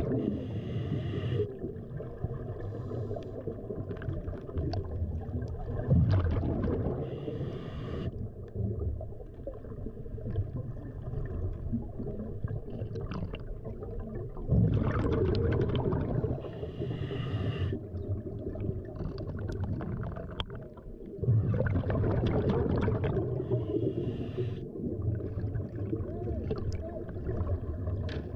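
Underwater ambience heard through a camera housing: a muffled low rumble of moving water that swells into louder rushing surges several times.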